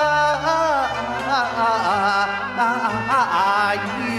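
Cantonese opera (yueqiu) singing: one voice draws out a long, wavering melismatic phrase over an instrumental accompaniment with steady lower notes.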